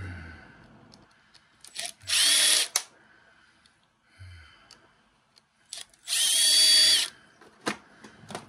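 Cordless drill/driver running in two short bursts, the first about half a second and the second about a second long, each with a whine that rises and then holds steady: it is backing out two screws from a small electric motor's end cap. A couple of light clicks follow near the end.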